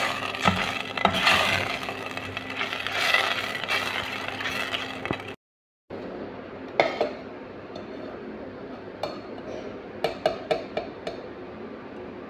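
A metal ladle stirring thick harees in a stainless steel pot, scraping and knocking against the pot. After a short break, a few sharp clinks sound as the harees is served onto a ceramic plate.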